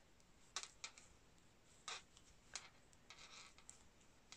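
Knitting needles faintly clicking as stitches are worked, with a few irregular ticks and a brief scratchy rub of yarn on the needle about three seconds in.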